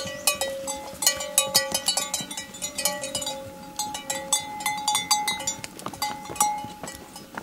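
Bells on a string of pack horses clinking and ringing irregularly as the animals walk, with the knocks of hooves on stones.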